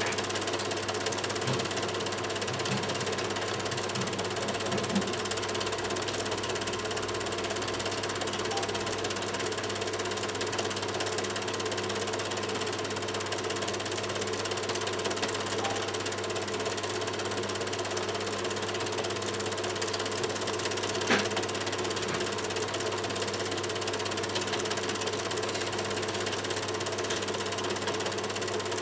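Super 8 film projector running steadily, its mechanism making an even mechanical whir, with one sharp click about 21 seconds in.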